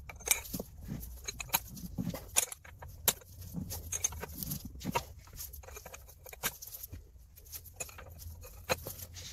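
Hand ratchet with a socket on an extension bar clicking in short, irregular runs as it is swung back and forth on a suspension bolt, with light metallic rattles.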